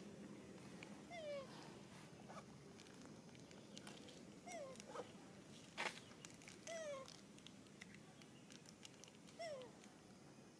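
Newborn macaque infant giving short, falling, meow-like cries, about four of them a couple of seconds apart: the calls of an upset infant. A sharp click about halfway through.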